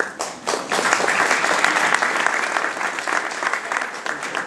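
Audience applauding, fading near the end.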